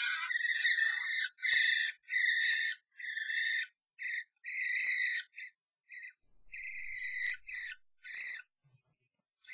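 European starlings giving harsh, rasping screeches in quick succession, each call under a second long, as they fight inside a nest box. The calls break off about a second before the end.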